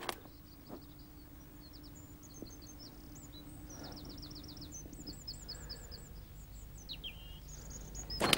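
A small songbird singing: short runs of rapid, high chirps and trills, fairly quiet, with a brief rustle near the end.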